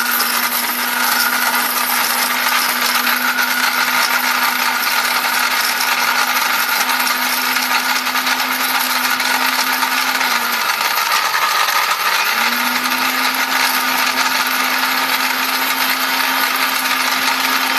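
A 1600-watt electric blender running at high speed, grinding dried turmeric pieces to powder in a small stainless steel jar: a continuous loud motor whir with a grinding hiss. Its steady hum falters for a couple of seconds about ten seconds in.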